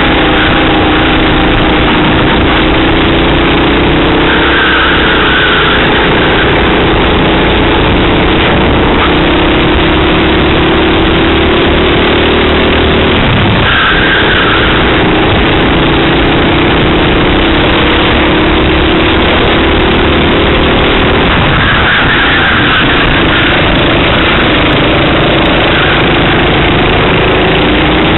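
Racing kart engine heard from an onboard camera, its note climbing slowly as the kart accelerates and dropping sharply on braking, about halfway through and again later, over a constant loud rush of noise.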